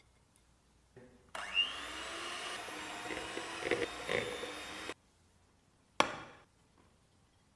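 Electric hand mixer spinning up with a rising whine, then running steadily as it creams butter and powdered sugar, its beaters clattering against the bowl a couple of times; it cuts off suddenly. About a second later comes a single sharp knock that dies away quickly.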